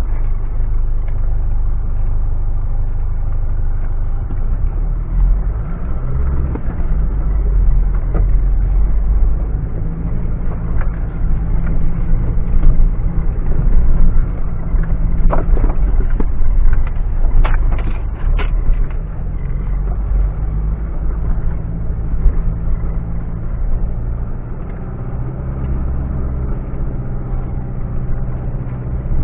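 Mitsubishi Pajero running as it is driven off-road: a steady low engine drone that rises and falls with the throttle, with a few sharp knocks a little past halfway.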